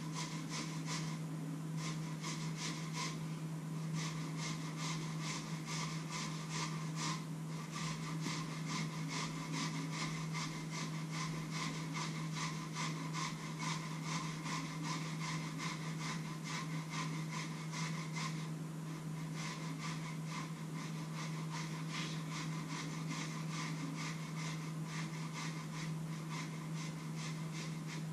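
Rapid rhythmic scraping strokes, about four a second, from hand food preparation at a kitchen counter, pausing briefly a few times. A steady low hum runs underneath.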